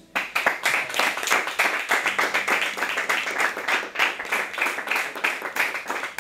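A small audience clapping steadily at the end of a song, starting all at once as the last guitar chord dies away.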